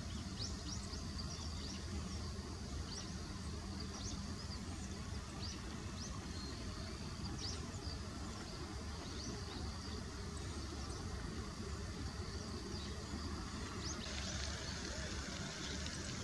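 Outdoor ambience: a steady low rumble with scattered short, high chirps from small birds and a faint steady high whine. A brighter hiss sets in about fourteen seconds in.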